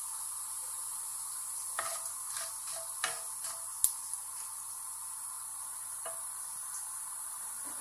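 Cumin seeds and asafoetida sizzling in hot oil in a nonstick wok with a steady hiss: the tempering (tadka) frying lightly. A wooden spatula stirs and knocks against the pan a few times, the sharpest knock about four seconds in.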